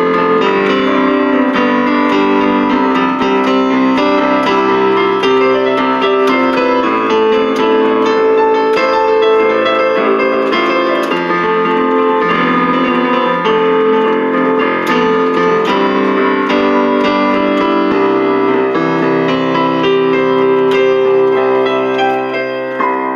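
Electronic keyboard played with a piano sound: a continuous run of chords and melody notes, ending on a final chord near the end.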